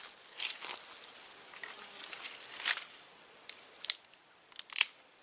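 Dry sticks and stalks crackling and snapping as they are broken and gathered by hand, with scattered rustling and a few sharper snaps in the second half.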